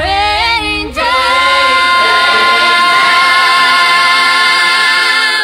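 Children's choir singing a cappella: a quick run of wavering notes, then one long held note.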